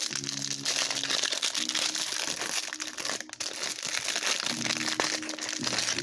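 Plastic packaging crinkling and rustling continuously as a football trading-card hanger box is unwrapped.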